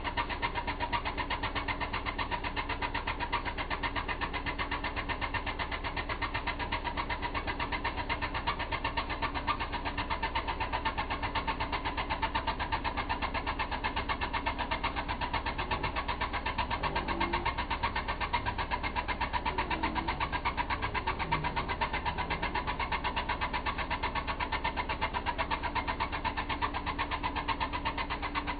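Small engine idling steadily with a fast, even pulse and a steady hum.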